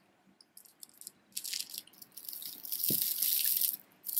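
Beaded bracelets and loose jewelry clicking and clattering as they are handled and set down. A dense rattle runs through the middle, with a soft thump about three seconds in.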